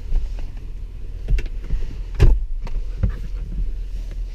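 Dull knocks and rustling as a person climbs over the folded second-row seat into the third row of a large SUV, over a steady low rumble. The strongest knock comes a little past halfway.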